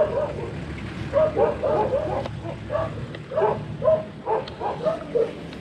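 A dog barking again and again in short, uneven barks, over a low steady rumble.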